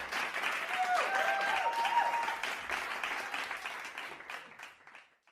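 A group of children cheering and clapping, with a few high shouts rising above the clapping, fading away over the last second and then cutting off.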